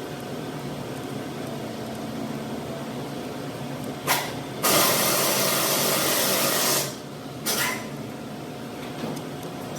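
Hissing spray in three bursts over a steady background hum: a short burst, then a louder one of about two seconds, then another short burst.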